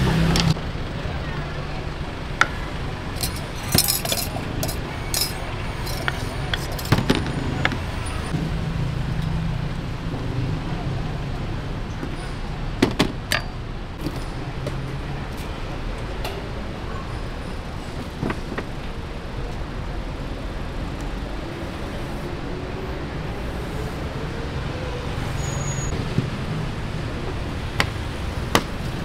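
Steady street traffic noise with a low rumble, broken every few seconds by sharp clinks and taps of utensils and tins on a stainless steel roti cart as dough balls are handled and pressed.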